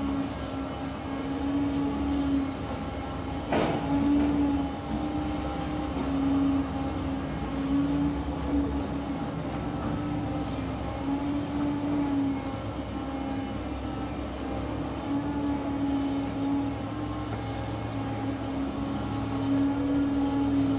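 Volvo crawler excavator's diesel engine and hydraulics running under load as it digs: a steady drone with a hum that swells and fades every second or two. One sharp knock about three and a half seconds in.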